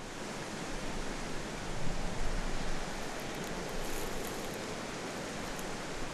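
2018 BMW X3 driving over a dirt and gravel track: a steady rush of tyre and road noise that swells about two seconds in, with a few faint ticks in the middle.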